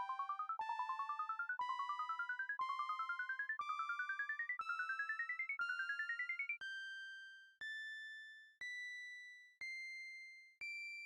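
Computer-generated synthesizer tones from a Sonic Pi clock program, a new note once a second, each a step higher than the last. For the first six and a half seconds each note carries a fast run of short blips climbing in pitch; after that only single notes sound once a second, each fading away.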